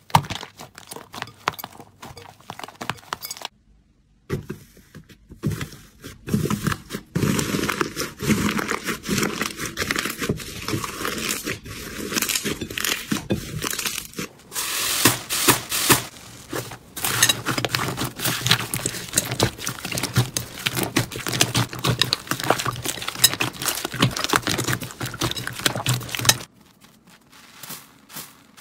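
Hands squeezing, stretching and kneading slime, with dense crackling, popping and tearing sounds. The sounds break off briefly about four seconds in and turn quieter near the end.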